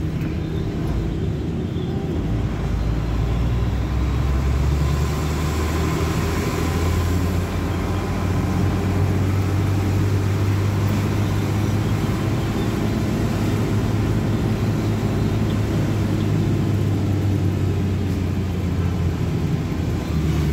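Vehicle engine running while driving, heard from inside the cabin as a steady low drone with road noise. The engine note rises about five seconds in as it picks up speed, then holds.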